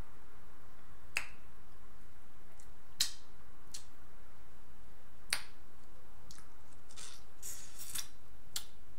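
Close-miked eating sounds: a few sharp wet clicks spaced seconds apart while boiled shrimp is peeled and bitten, then a denser run of smacking and chewing near the end.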